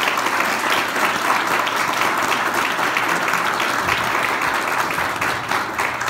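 Applause from a roomful of people, many hands clapping steadily.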